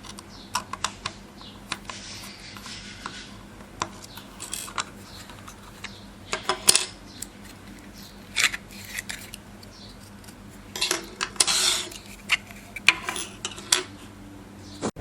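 Repeated sharp clicks and short scrapes of small hard plastic and metal parts being handled and worked on, with a faint steady low hum underneath.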